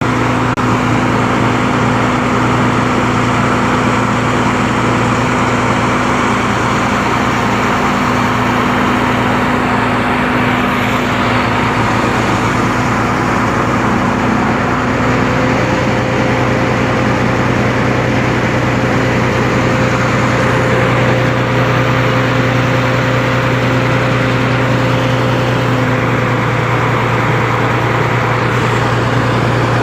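Engine running steadily at a constant speed, a continuous hum whose tone shifts slightly about halfway through.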